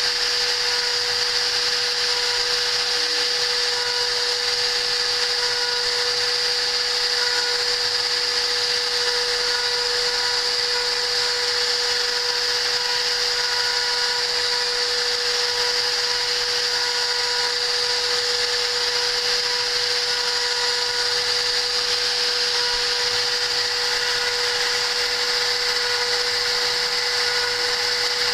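CNC machine's spindle motor running steadily, a constant whine over an even hiss.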